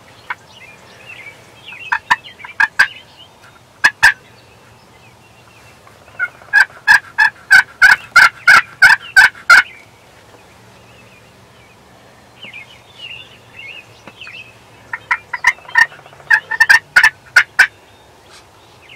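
Wild turkey gobbler gobbling, a loud fast rattling call. There are a couple of short gobbles in the first few seconds, a long gobble from about six seconds in that lasts some three seconds, and another gobble a few seconds before the end.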